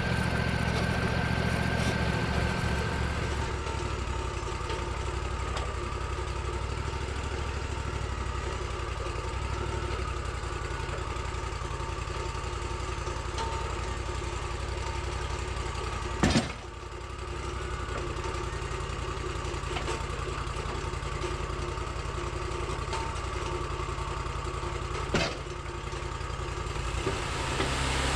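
Sawmill engine running steadily, with two sharp knocks, one about midway and one near the end.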